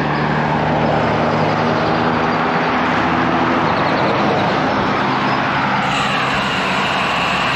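Steady rush of wind and road noise from a road bicycle riding beside motor traffic, with a vehicle's engine hum for the first few seconds. Another vehicle passes about six seconds in.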